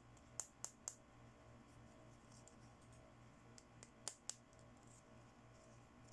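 Small hard plastic toy accessories clicking and tapping as they are handled: three sharp clicks in quick succession under a second in, then two more about four seconds in, over a faint low hum.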